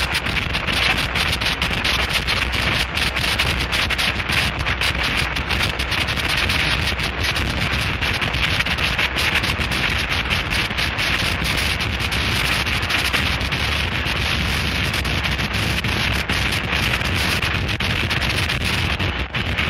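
Harsh noise recording: a dense, unbroken wall of distorted static, hissing and crackling over a heavy low rumble, with a brief dip in level near the end.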